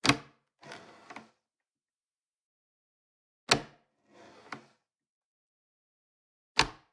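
Wooden door shutting with a sharp thud, three times about three seconds apart, each thud followed by a softer rattle that ends in a small click.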